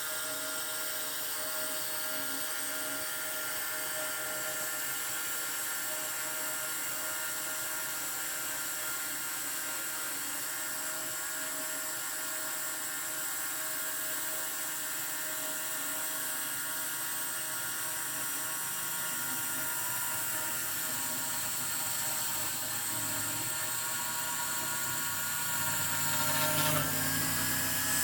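Small CNC spindle motor on a 3DPRN-LAB machine running with a steady high-pitched whine as it cuts 4 mm balsa sheet. Near the end its pitch dips briefly and the low hum grows a little louder.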